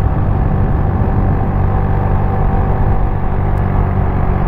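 Tiger 120 cc motorcycle engine running at a steady, moderate speed while being ridden, a continuous low rumble with a faint steady whine above it.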